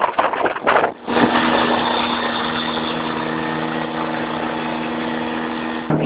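CGS Hawk Arrow ultralight's engine idling steadily, after about a second of loud, uneven rushing noise. The engine's tone shifts slightly just before the end.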